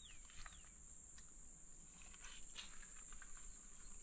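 Faint outdoor ambience: a steady high-pitched insect drone, with two short falling bird chirps near the start and a few faint ticks.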